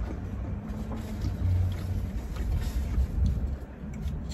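Mouth chewing a bite of stuffed-crust pizza, with faint short crunchy ticks, over a steady low rumble.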